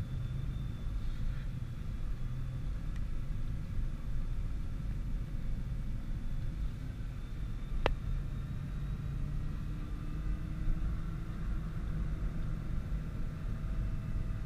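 Nissan GT-R's twin-turbo V6 and road noise at a steady cruise, a low continuous rumble. A single sharp click sounds about eight seconds in.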